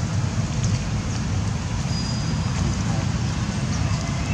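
Steady low rumble of wind buffeting the microphone outdoors, with a few faint high chirps.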